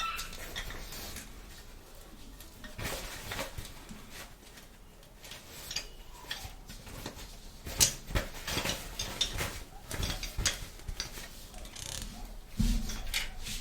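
Small plastic toy playset pieces being handled and set down: irregular light clicks, taps and clatters, with a sharper knock about eight seconds in. A low hum starts near the end.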